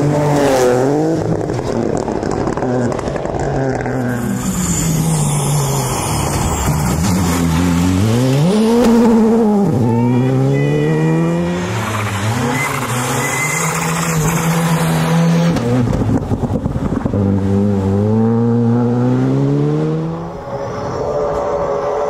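Rally cars at full speed, among them a Ford Fiesta and a Škoda Fabia, their engines revving hard. The pitch climbs and drops again and again through gear changes and lifts.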